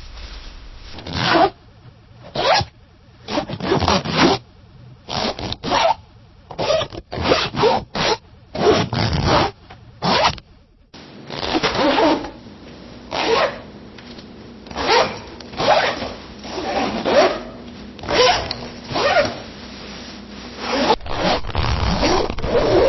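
Zipper being zipped up and down repeatedly: a run of quick rasping pulls, some short, some longer, with a brief pause about halfway through.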